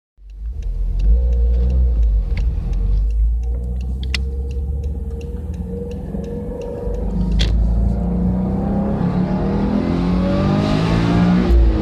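Subaru Legacy BL5 GT's turbocharged 2.0-litre flat-four engine running under way, then accelerating with a rising pitch from about the middle, dropping back near the end as it shifts up. A faint regular ticking sounds over the engine in the first few seconds.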